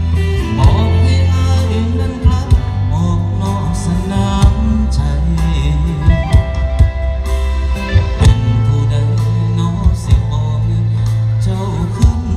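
Loud music with sustained bass notes, a steady beat and a singing voice.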